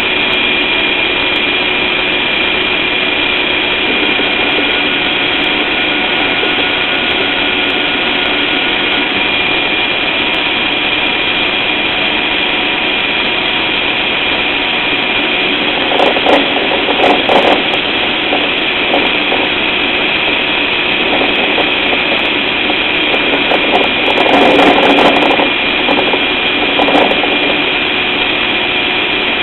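IPS TPV-350 heating-type valve making an abnormal loud, steady noise: a rushing hiss with a thin high whistle through it. It swells louder in short irregular spells about halfway through and again near the end. This is a noise fault that comes with vibration of the valve.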